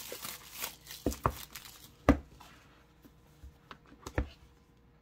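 A little plastic-wrap crinkling, then several short knocks and taps as a heavy-duty deck box is handled and set down on a wooden table; the loudest knock comes about two seconds in.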